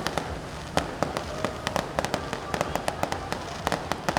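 Fireworks and firecrackers going off in a rapid, irregular string of sharp bangs, several a second.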